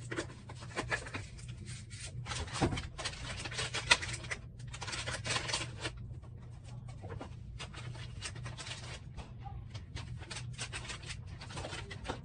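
Plastic laundry-product bottles, caps and packaging being handled and set down: a string of light clicks, knocks and rustles, busiest in the first half, over a steady low hum.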